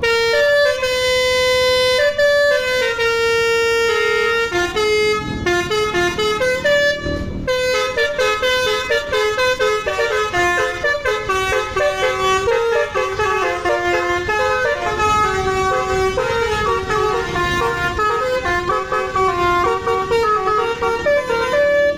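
A telolet multi-tone vehicle horn playing a tune. Several horn tones sound together and change note in steps, held longer at first and quicker from about seven seconds in.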